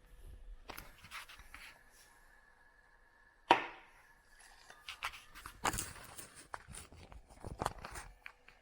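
Irregular knocks and clicks, the loudest a sharp knock with a short ring about three and a half seconds in, followed by a cluster of smaller knocks.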